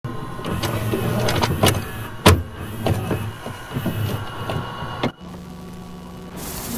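Videocassette recorder sound effect: irregular clicks and clunks of the tape mechanism over a low hum. About five seconds in it gives way to a steady electrical hum, with hiss swelling near the end.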